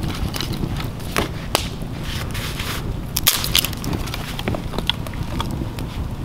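Wood campfire burning with a steady low rush and irregular sharp crackles and pops, one louder pop about three seconds in, along with dry sticks being handled.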